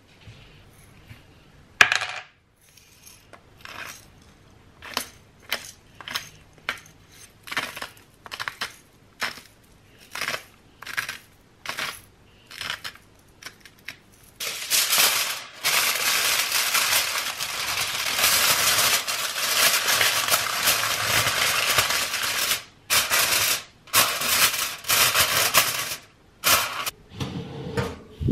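Aluminium foil crinkling as it is torn off and pressed over a glass baking dish: a dense crackle lasting about ten seconds, breaking off a few times near the end. Before it come a sharp click and a run of short light clicks about twice a second; near the end, low knocks.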